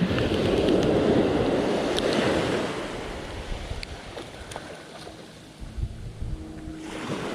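Ocean surf on a beach: a wave breaks right at the start and its wash fades over the next few seconds, with another swell near the end and wind buffeting the microphone.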